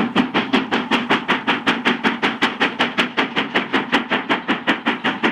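Steam locomotive running, its exhaust beating in quick, even chuffs, about five a second.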